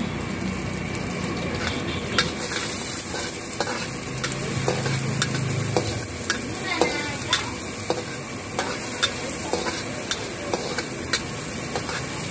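Onions, capsicum and curry leaves sizzling in hot oil in a wok while a metal ladle stirs them, clacking against the wok about once or twice a second over a steady frying hiss.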